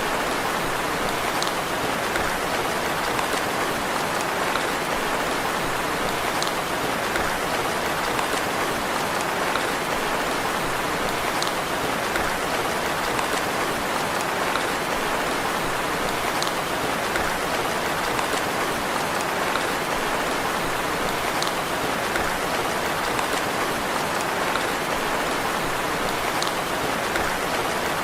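Steady rain falling, an even hiss of raindrops, with a faint tick about every five seconds.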